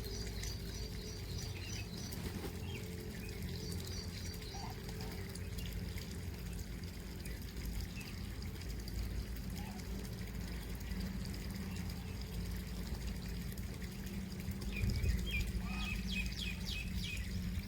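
Small birds chirping in short high calls, a few near the start and a quick run of chirps near the end, over a steady low sound of flowing water.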